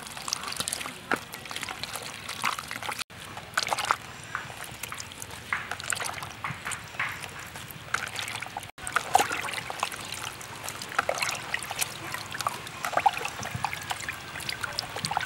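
Hands swishing wild mushrooms around in a tub of water, with irregular small splashes, sloshing and drips as handfuls are lifted out to drain in a plastic colander.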